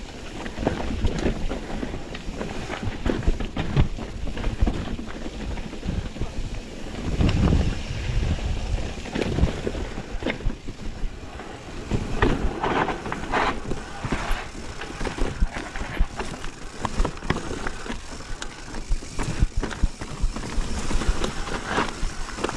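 Mountain bike running down a rough, rocky downhill trail: tyres crunching over dirt and rock with frequent knocks and rattles from the bike, and wind rushing over the microphone.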